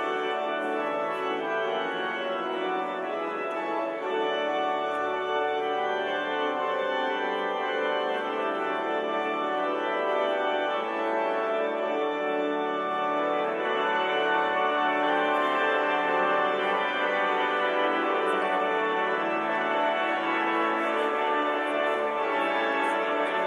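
Church organ playing a recessional in full, sustained chords.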